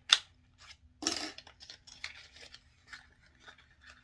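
A small cosmetics package being opened by hand: a sharp click at the start, a short tearing crinkle about a second in, then light scratching and tapping as it is handled.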